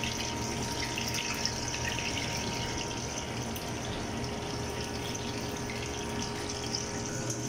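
Battered shrimp frying in hot oil, a steady crackling sizzle, over a faint steady kitchen hum.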